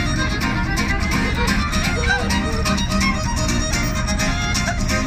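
Fiddle and steel-string acoustic guitar playing a tune together: the fiddle carries the melody over steadily strummed guitar chords.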